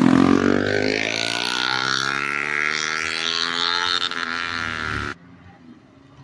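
BMW G 310 GS single-cylinder motorcycle engine revving, rising in pitch and then holding at high revs. It cuts off abruptly about five seconds in.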